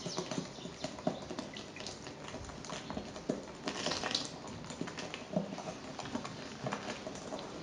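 Hand whisk beating a runny cake batter in a glass bowl: irregular clicks and taps of the whisk against the glass over the wet slosh of the batter, with orange juice poured in about four seconds in.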